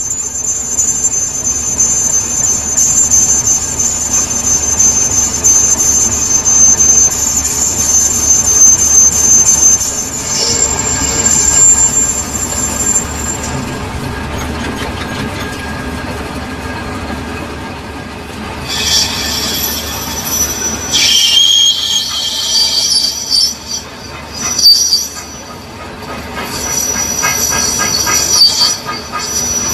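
Metal lathe turning a steel shaft, the cutting tool scraping the metal with thin, high, steady tones. About halfway through, the tones stop and a different set of high tones starts.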